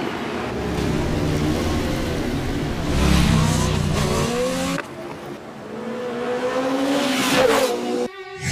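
Motorcycle engine revving as it speeds past, its pitch rising in several glides in the second half, then cutting off suddenly near the end.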